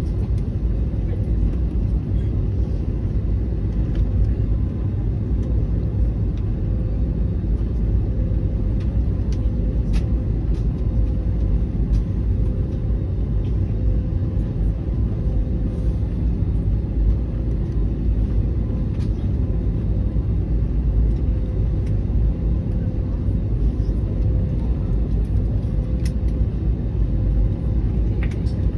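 Steady low rumble of an Airbus A321neo passenger cabin, with a faint steady hum running through it and a few small clicks.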